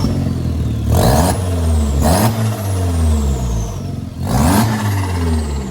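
MK4 Jetta's 1.8-litre turbocharged four-cylinder revved in three quick throttle blips, each followed by a high whistle that slides down as the revs fall. The revving is a test of a newly refitted aftermarket blow-off valve.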